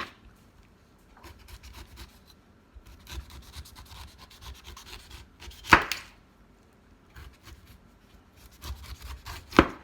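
Sharp kitchen knife carving the tough peel and eyes off a fresh pineapple: soft scratchy cutting and scraping, with three sharp knocks of the blade on the cutting board, at the start, about six seconds in and near the end.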